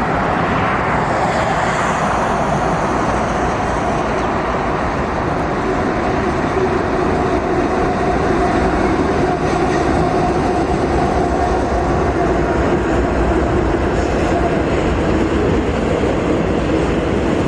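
Canadian National freight train's four diesel-electric locomotives passing close by, a loud steady rumble of engines and steel wheels on rail, followed by double-stacked container cars rolling past.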